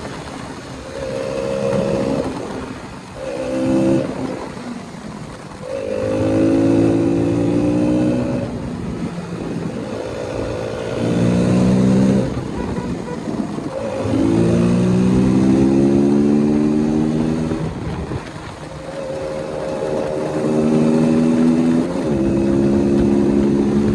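KTM single-cylinder motorcycle accelerating through the gears: the engine note rises in pitch several times, each time dropping back sharply at an upshift.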